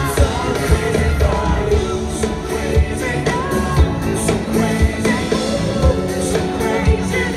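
Live pop-rock band playing a song, a male lead singer over electric guitar and drums with a steady kick-drum beat, heard from among the audience in an arena.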